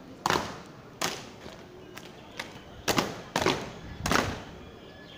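Soldiers' boots stamping hard on pavement during parade drill. There are five heavy stamps over about four seconds, two of them in quick succession, each with a short echo.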